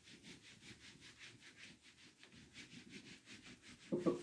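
A board being erased, the eraser rubbed quickly back and forth in an even swishing rhythm of about five strokes a second.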